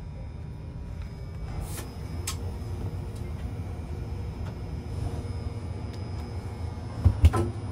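Steady low rumble inside a KTX high-speed train carriage, with a few light clicks and a short, louder double thump near the end.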